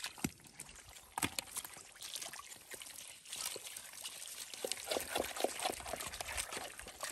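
Muddy water dripping and trickling, with a dense run of quick wet slaps and splashes through the second half as caught fish flop in a plastic basin of shallow water.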